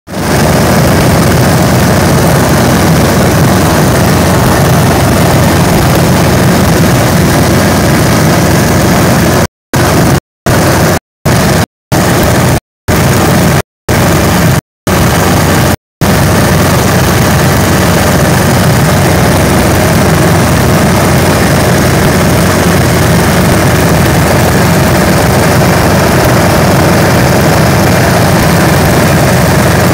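Single-engine light aircraft's engine and propeller running steadily in flight, heard from inside the cockpit as a loud, even drone. The audio cuts out completely eight times, briefly, between about ten and sixteen seconds in.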